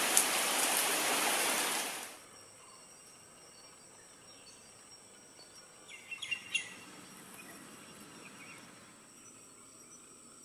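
Heavy rain falling on leaves, cutting off abruptly about two seconds in. Then faint outdoor quiet with a steady high insect drone, and a short burst of bird chirps just past the middle.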